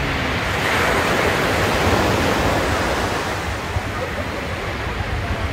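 Ocean surf breaking and washing up on a sandy beach: a steady rush of small waves.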